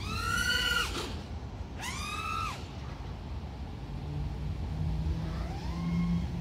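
5-inch FPV quadcopter's brushless motors and propellers whining, the pitch climbing and falling back in three throttle bursts: one at the start, one about two seconds in and one rising near the end. Under it runs a steady low rumble.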